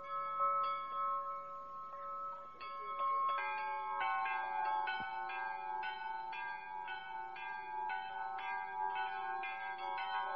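Church bells rung by hand with bell ropes, clanging in a jangle of several pitches that overlap and ring on. The strikes come sparser at first and become a rapid, dense peal about three and a half seconds in.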